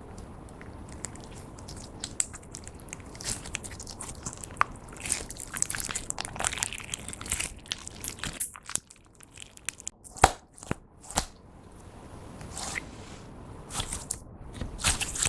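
Clear slime being worked by hand, crackling and clicking as it is folded and pressed, with two louder sharp clicks about a second apart roughly two-thirds of the way through.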